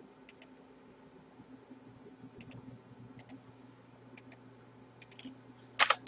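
Computer mouse and keyboard clicking: a few quick pairs of faint clicks spread through, over a low steady hum.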